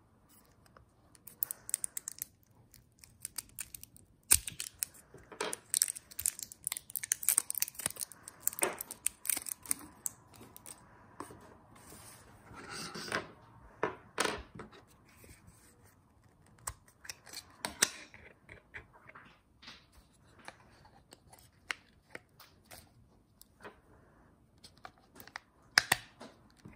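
Hands handling AAA batteries and a small remote control: an uneven scatter of small clicks and taps as the batteries are set down and pressed into the remote's battery compartment. There are several short rustling, tearing bursts, most of them in the first half.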